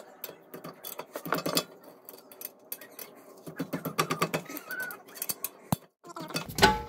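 Ratchet wrench with an 18 mm socket clicking and clinking as it tightens the front brake caliper holder bolts: a run of irregular sharp metallic clicks.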